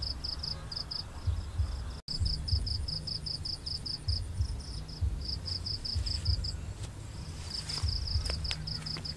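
Crickets chirping in fast high-pitched trains, about six chirps a second with short breaks, over low rumbling and bumping noise; a few sharp rustling clicks near the end.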